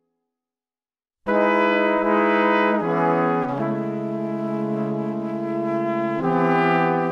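Background music of held, sustained chords that change every second or so, cutting in abruptly after about a second of dead silence.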